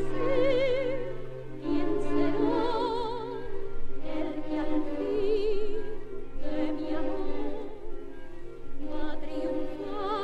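Zarzuela waltz-romanza from a 1955 LP recording by a chamber orchestra, with a high melody carried with wide vibrato in phrases about two seconds long.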